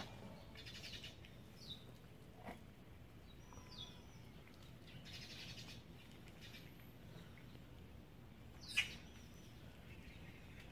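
Small birds chirping now and then: short high calls that fall in pitch, the loudest about nine seconds in, with a couple of brief fast rattling trills.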